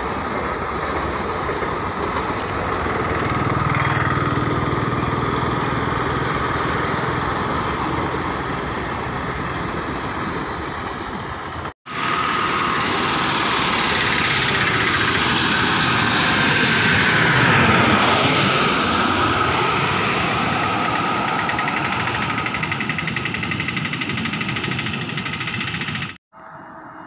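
A passenger train's coaches roll past. After a brief break a jet airliner on approach grows louder, is loudest as it passes over about two-thirds of the way in, then fades.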